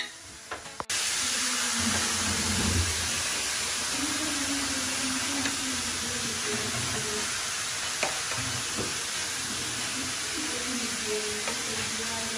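Steady sizzling hiss of food frying, starting abruptly about a second in, with a few light clicks.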